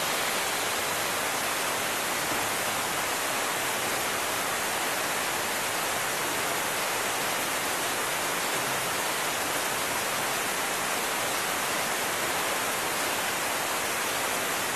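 A steady, even hiss that holds level without change.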